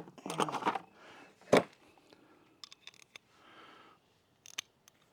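Hand tools and metal parts being handled: scattered clicks and clinks, with one sharp knock about a second and a half in.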